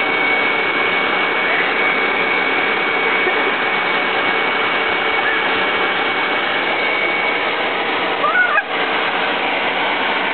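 Vacuum cleaner running steadily: an even rush of air with a constant high whine from the motor. The sound wavers briefly and dips near the end.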